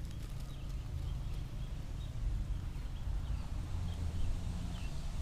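Outdoor ambience at a small river: a steady low rumble with faint, short high chirps now and then.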